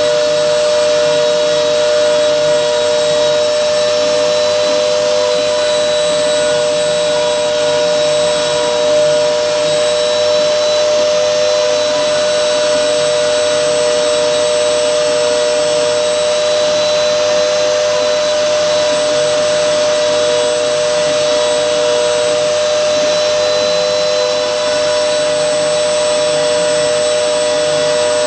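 CNC router spindle running steadily at high speed while milling, a constant loud whine whose pitch wavers slightly over a rushing noise.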